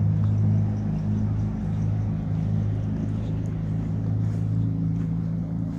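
A steady low engine hum with an even pitch, shifting only slightly now and then.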